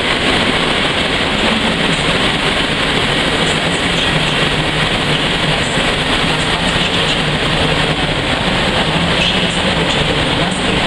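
PKP Intercity passenger train hauled by an EU07 electric locomotive pulling into the station, its coaches rolling steadily past with wheel rumble and a faint clatter over the rails.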